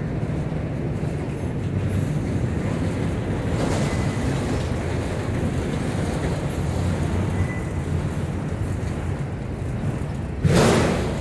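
Autorack cars of a long freight train rolling past close by: a steady rumble of steel wheels on rail. A brief louder burst of noise comes near the end.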